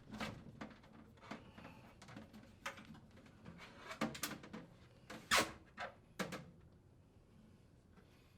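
Range vent hood chimney sections being lifted off their mounting bracket: a series of clunks and knocks, the loudest about five seconds in, then quiet handling.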